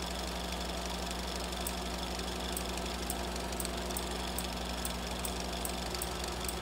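A steady machine-like hum with a light, regular ticking, two to three ticks a second.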